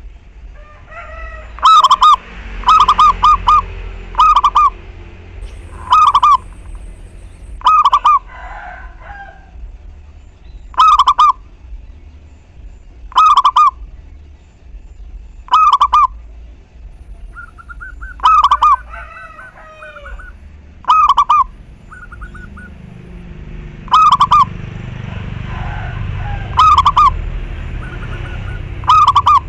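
Zebra dove singing its cooing song: a short, loud burst of rapid rolling notes, repeated about every two to three seconds. Other small birds chirp quietly between the phrases, and a low rumble rises in the background in the second half.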